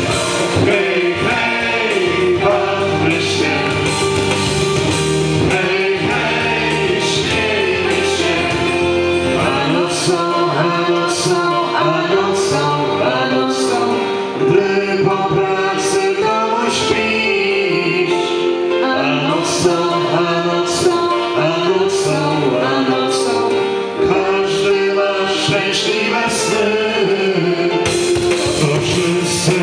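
Mixed vocal group, men and a woman, singing together into microphones, amplified through a PA. They are accompanied by an electronic keyboard, and a regular beat strikes about once a second.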